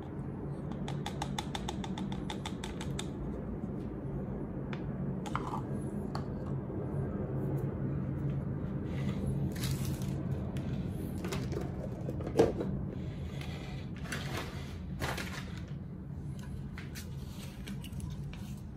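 Small clicks, taps and plastic rustling from hands handling a glass bottle of millet and foil bait sachets on a tabletop, with one sharp knock about twelve seconds in. A steady low hum runs underneath.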